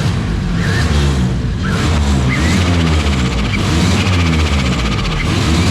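Car engine running through a freshly built exhaust and muffler, its note rising and falling repeatedly as it is revved. The engine is running really rich, which the owner puts down to the O2 sensors not being wired in properly.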